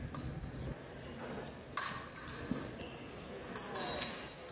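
Fencing blades clicking together and fencers' shoes knocking on the strip, then a steady high electronic tone from the fencing scoring machine starting about three seconds in, the signal that a touch has landed.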